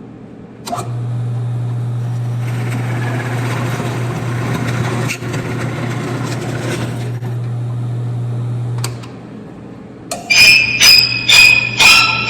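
Drill press motor starting and running with a steady hum while a spade bit cuts through wood for several seconds, then spinning down and stopping. About ten seconds in, music with bell-like notes about twice a second starts and is louder.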